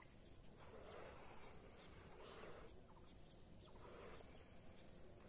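Faint breathy puffs of latex balloons being blown up by mouth, a few breaths about a second and a half apart, over a steady high-pitched hiss.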